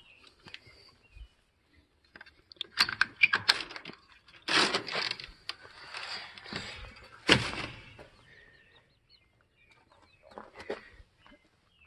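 Hens shut in the coop for the night, making soft clucks and chirps. A loud stretch of rustling and knocking runs from about two and a half seconds in to about eight seconds in.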